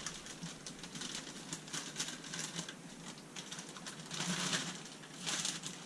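Frozen broccoli, carrot and cauliflower pieces pouring from a crinkling plastic bag into a skillet of filling: a dense run of small clicks and plastic rustle, louder a little after four seconds in and again near the end.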